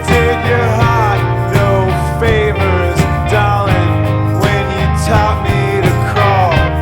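Indie rock band recording in an instrumental stretch: an electric guitar plays a lead with bending, gliding notes over a steady bass line and drums.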